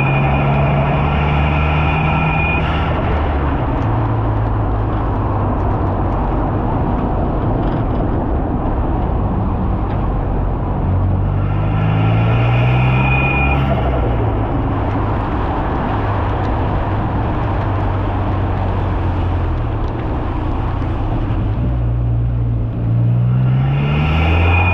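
Ford Fiesta ST180's hybrid-turbocharged 1.6-litre four-cylinder pulling under acceleration, its note rising twice, about 11 and 22 seconds in, with a high turbo whistle that cuts off suddenly about 2 and a half seconds in and again about 14 seconds in as the throttle is lifted and the turbo flutters. Between the pulls the engine runs at a steadier note under a rush of road noise.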